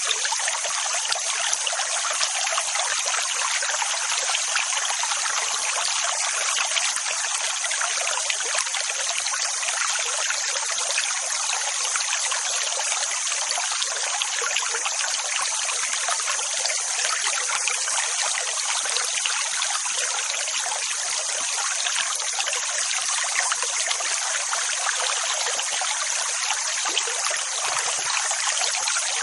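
Continuous rushing water, a dense steady hiss with no rise and fall of separate waves.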